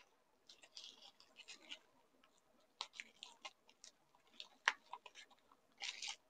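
Faint crinkling of bubble wrap and plastic packaging being handled and pulled open, with a few sharper clicks of scissors cutting through the wrap.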